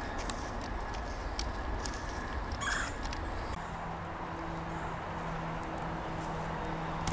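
A small shovel scraping and chopping at packed soil around the base of a wooden post, with a few sharp clicks over a low wind-like rumble. From about halfway through, the rumble drops away and a steady low hum runs on with brief breaks.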